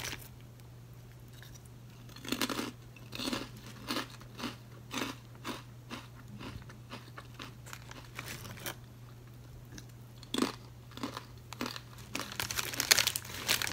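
A crunchy bagged snack being chewed close to the microphone: irregular crunches, roughly two a second, starting about two seconds in, over a steady low hum.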